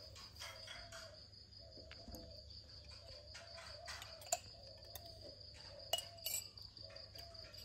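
Insect trilling steadily at a high pitch, typical of a cricket, with a few sharp clicks about four and six seconds in.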